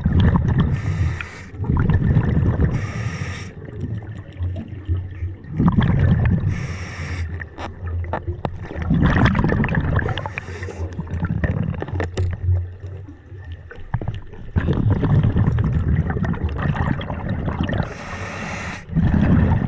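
Scuba diver breathing through a regulator underwater: a short hiss on each inhale and a rumble of bubbles on each exhale, repeating every few seconds.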